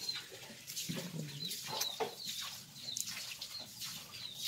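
Chickens clucking, with short high chirps now and then.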